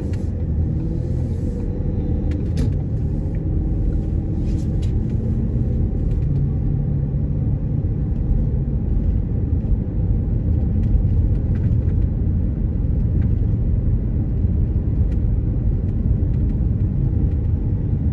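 Road noise inside a moving car: a steady low rumble of tyres on rough city pavement, with a few faint clicks in the first five seconds or so.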